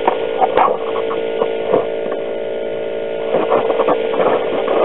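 A steady mechanical hum holding one pitch, with a few scattered knocks and rustles of handling over it.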